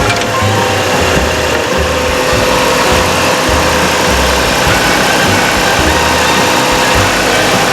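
Toyota Crown JZS175's straight-six engine running steadily at idle.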